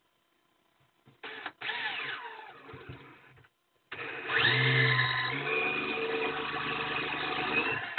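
Electric drill driving an auger bit into plywood: a short burst, then a run that winds down. About four seconds in it spins up with a rising whine and runs steadily under load until it stops just before the end.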